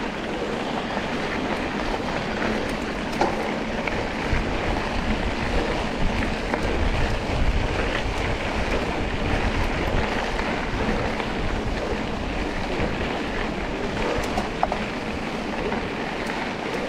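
Steady rush of wind on the microphone over the running of an off-road trail motorcycle, with a couple of short sharp knocks.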